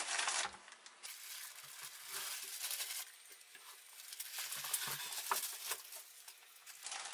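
Plastic bags and bubble wrap crinkling and rustling as they are handled, with soft irregular crackles and small clicks.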